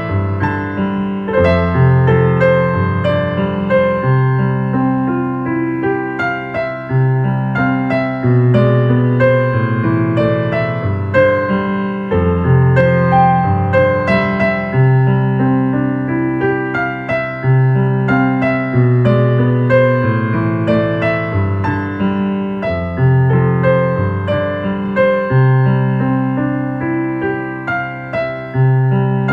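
Slow ambient electric piano music: gentle overlapping notes over long held bass tones.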